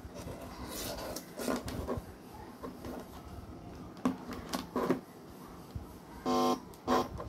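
Clicks and rattles of audio plugs, cables and a smartphone being handled at a breadboard amplifier. About six seconds in comes a short, loud buzz from the loudspeaker as the hand is on the amplifier board.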